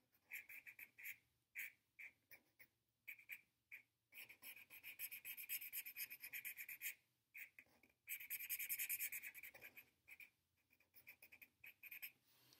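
Felt-tip marker rubbing on sketchbook paper in rapid back-and-forth strokes, filling in a solid black area. It comes in several runs with short pauses and is faint.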